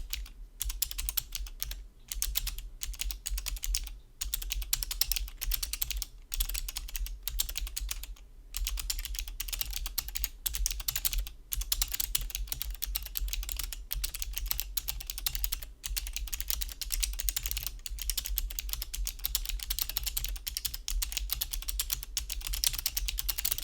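Fast typing on an Alpha28 28-key mechanical keyboard with magnetic Alps switches in a hollow acrylic sandwich case: a dense stream of keystrokes with a few short pauses, carrying some reverb from the hollow case. The typing stops at the very end.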